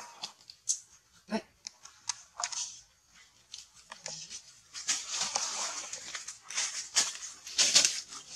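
Dry leaves crackling and rustling under baby monkeys scrambling over them, in many short crackles, the loudest near the end.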